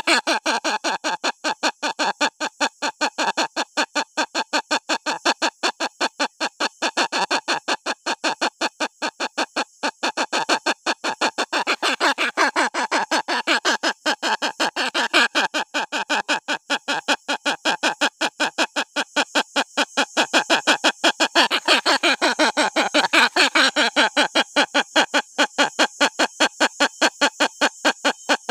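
Hornbill chick crying: a rapid, unbroken string of short, evenly repeated call notes. It grows a little louder about two-thirds of the way in.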